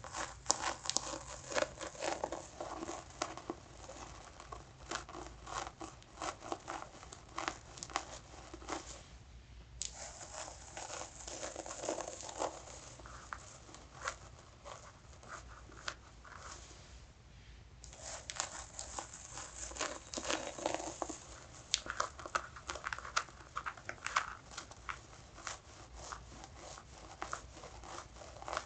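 Fingernails scratching through hair over the scalp and nape: a dense run of short, quick scratching strokes.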